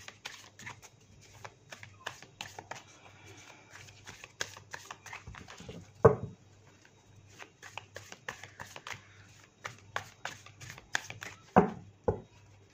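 Tarot cards being shuffled by hand: a run of quick, light card ticks and flicks, broken by louder thumps about six seconds in and twice near the end.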